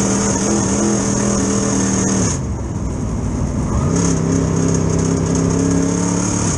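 Super late model dirt race car's V8 engine heard from inside the car at racing speed. The engine note drops away about two seconds in as the driver comes off the throttle, then rises again about four seconds in and holds steady.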